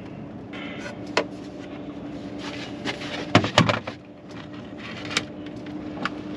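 Knocks and clatters of a caught fish and gear being handled in a small boat, the two loudest close together about three and a half seconds in, over a steady low hum.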